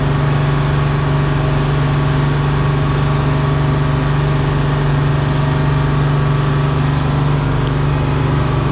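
Charter fishing boat's engine running steadily: a constant low hum and drone with no change in speed.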